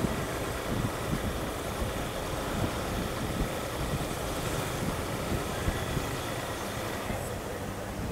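Riding noise of a Honda Bros 160 motorcycle: its single-cylinder engine running under way, mixed with gusty wind on the microphone. Near the end the wind eases and a steady low engine hum comes through.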